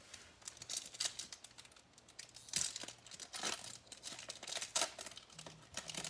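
Baseball card pack wrapper being torn open and crinkled: an irregular run of sharp crackles and rustles.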